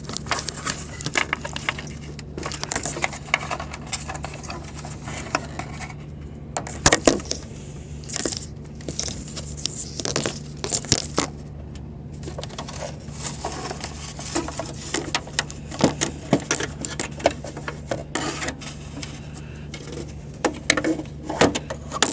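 Wires and plastic connectors being handled and fed through a headlight housing: irregular rustling, crinkling, clicks and scrapes, with a few sharper knocks.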